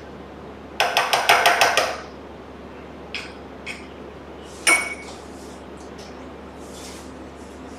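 A metal spoon stirring and scraping melted chocolate in a small bowl, with a quick run of about eight clinks against the bowl just after the start. A couple of light taps follow, then one sharper ringing clink near the middle as the spoon or bowl is set down.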